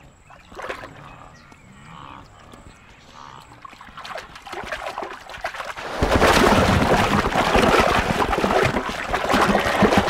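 Faint dripping and lapping water as wildebeest drink, then about six seconds in a sudden loud splashing and thrashing as a crocodile lunges out of the water and seizes one.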